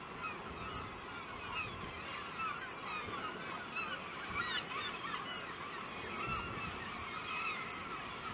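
A flock of birds calling together: many short, overlapping calls without a break.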